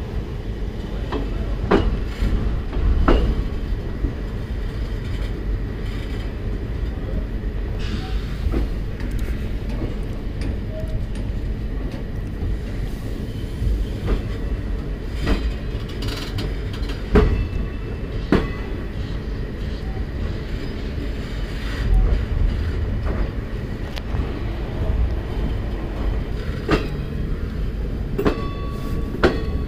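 Passenger train pulling slowly out of a station, heard from an open coach door: a steady low rumble of the moving coaches with scattered sharp clanks of wheels over rail joints.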